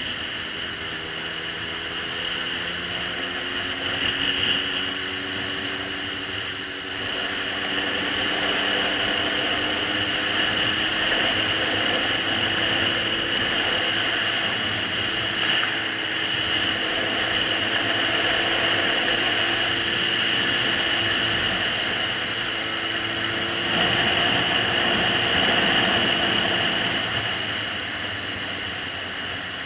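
Suzuki GSR750's inline-four engine running on the move, its note climbing slowly and steadily, under a constant rush of wind noise.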